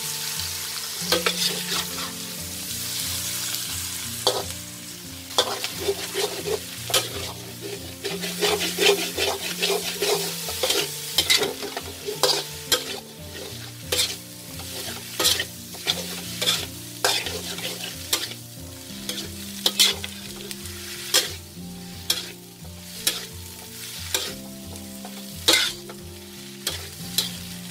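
Metal spatula scraping and clanking against a steel wok as diced pumpkin and scrambled egg are tossed together, over a steady sizzle of frying. The strikes come irregularly, about one or two a second.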